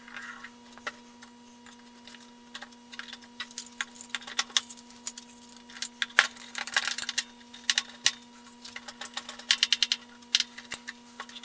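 Woodworking clamps being handled and tightened on a glued wooden moulding: many quick, irregular clicks and light metallic rattles in bursts, over a faint steady hum.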